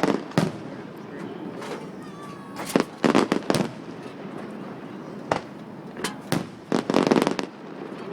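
Fireworks going off in irregular sharp bangs and crackles, with quick clusters of several reports about three seconds in and again around seven seconds in.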